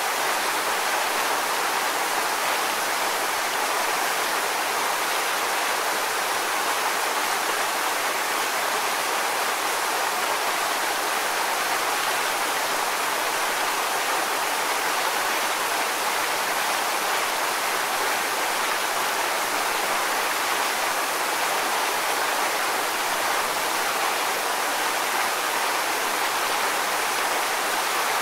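Waterfall: water pouring and splashing in a steady, even rush with no change in level.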